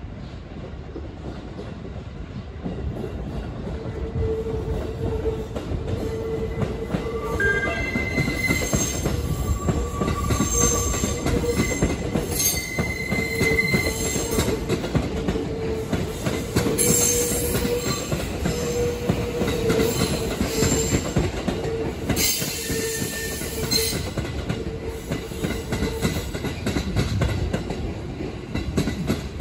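JR West 207 series seven-car electric train rolling slowly past on the yard tracks: steady wheel and running rumble under a steady hum, with short high-pitched wheel squeals coming and going.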